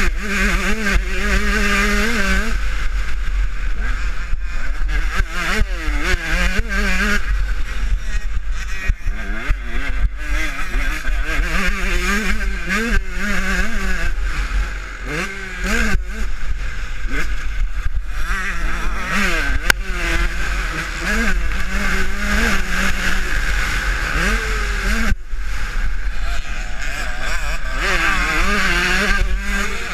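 Husqvarna TC125 single-cylinder two-stroke motocross engine heard from onboard at race pace, revving up and down over and over as the throttle is worked. It backs off briefly about halfway through.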